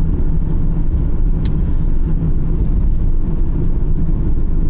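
Steady low drone of engine and tyre noise inside a van's cab while driving at speed, with a light click about one and a half seconds in.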